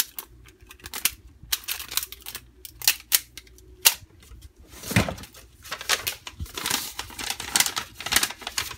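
Hands handling packaging: plastic wrapping crinkling with quick clicks and taps as the wrapped puzzle is put down. From about five seconds in comes a denser stretch of paper and plastic rustling.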